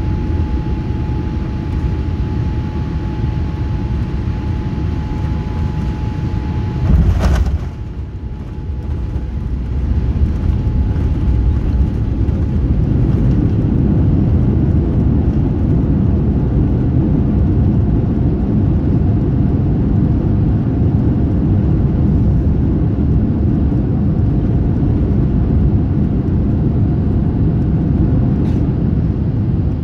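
Boeing 787-8 landing, heard from a window seat in the cabin: a steady rumble with a thin whine, then a sharp thump about seven seconds in as the wheels meet the runway and the whine stops. The rumble drops briefly, then swells over the next few seconds and holds loud while the jet rolls out along the runway.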